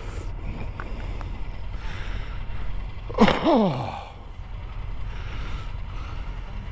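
Steady low rumble of a motorcycle underway with wind noise. About three seconds in, a short vocal sound that falls quickly in pitch, like a sigh or groan.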